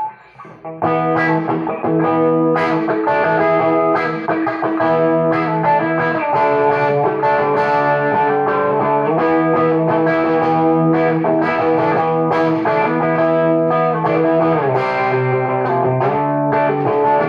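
Electric guitar, a late-1970s Penco Les Paul copy, played through a converted Hammond AO-43 organ amplifier turned up halfway, sustained chords and riffs with an overdriven, gritty edge.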